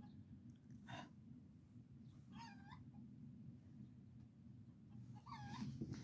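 Faint animal calls from outdoors: two short runs of quick, high, repeated yelping notes, one about two seconds in and one near the end, over a steady low hum.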